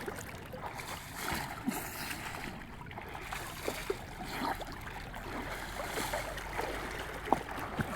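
Stream water rushing and splashing, a steady wash of noise with a few faint short knocks and splashes scattered through it.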